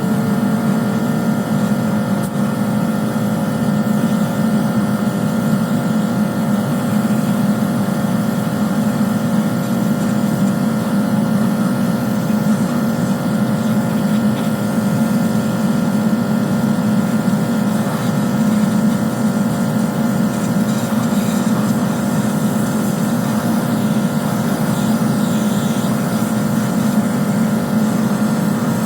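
A motor-driven machine starts up just before and runs loud and steady at one constant speed, with a steady hum and whine over a rough low drone.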